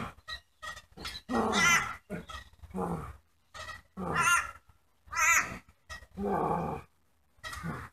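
A boy's voice giving repeated wordless yells and cries, short bursts about once a second, a few of them climbing into high, wavering screams.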